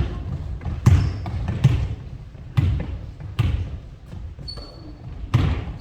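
Basketballs bouncing on a gym floor: about six irregularly spaced bounces echoing in the hall. A brief high squeak comes about four and a half seconds in.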